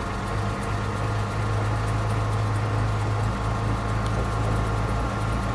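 1953 Chevrolet 3100 truck engine running at a steady idle just after being started.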